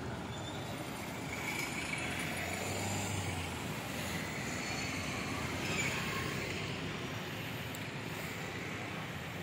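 Street traffic: motorcycles and scooters riding past on an open road, a steady wash of small-engine and tyre noise.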